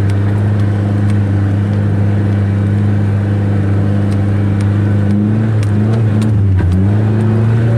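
Off-road vehicle engine running steadily under way, with a steady low hum that dips briefly in pitch about six and a half seconds in, then comes back up.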